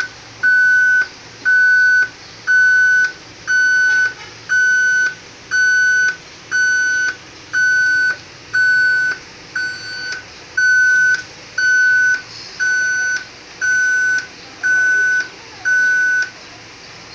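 Satellite receiver's signal beep, a steady single-pitch electronic beep repeating evenly about once a second, each beep about half a second long, stopping near the end. It is the tone that sounds while a dish is locked onto the satellite signal.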